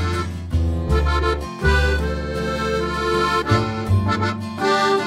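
Instrumental background music: sustained, reedy chords that change about every second over a low bass line, with no voice.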